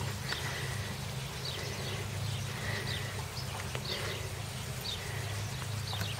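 Horse grazing, tearing and chewing grass, with short high bird chirps repeating about once a second and a steady low hum.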